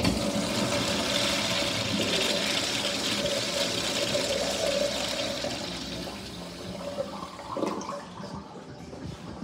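Urinal flushing: a sudden rush of water starts at once, swirls through the bowl, and dies away after about six seconds.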